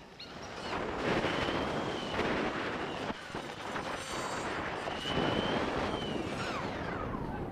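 Mototec off-road electric skateboard riding fast over pavement: heavy wind rush on the microphone and tyre rumble, with the electric motor's whine rising and falling in pitch and gliding down near the end as the board slows.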